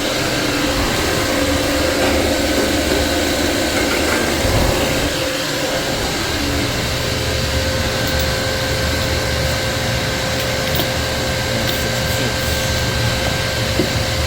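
Refrigerant recovery machine running steadily, its compressor pulling refrigerant out of the system before the evaporator is removed.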